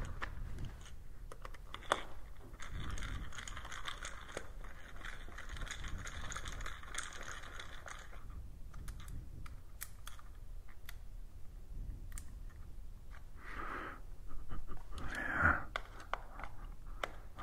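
Light clicks, scrapes and rustles of a screwdriver and small screws being handled at a motorcycle engine's case cover, with a steady hiss from about two seconds in until about eight seconds in.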